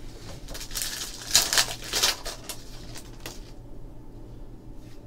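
Panini Certified football cards being handled on a table: set down on a stack, slid and flipped through in the hands, a quick run of scrapes and rustles over the first three seconds or so, then only a faint steady hum.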